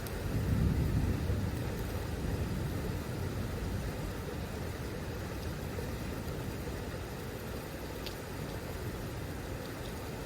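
Thunder rolling, swelling about half a second in and then rumbling on and slowly fading over a steady hiss.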